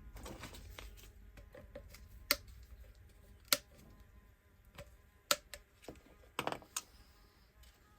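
Irregular light clicks and taps from parts and tools being handled, with a few sharper knocks spread through, over a faint low hum.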